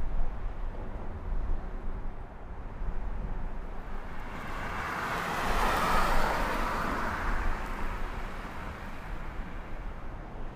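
A car passing by on the street, its noise swelling over a couple of seconds and fading away, over a low steady background hum of city traffic.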